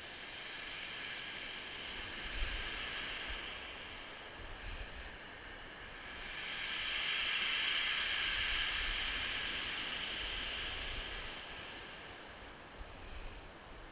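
Surf breaking on a shingle beach, the wash swelling to its loudest about halfway through and then receding, with wind rumbling on the microphone.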